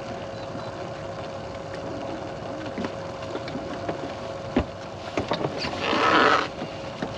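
Steady whine of a bass boat's electric trolling motor over wind and water noise. There is a single thump about four and a half seconds in. Near the end comes a short, loud rustle as clothing brushes against the camera.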